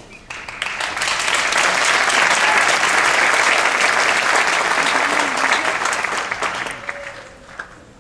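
Audience applauding: the clapping swells up within the first second, holds steady, then dies away about seven seconds in.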